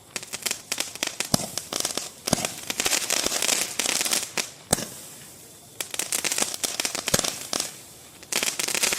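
A strobe-pellet firework rack firing: waves of dense, rapid crackling pops with a few louder single cracks, in three bursts separated by short lulls.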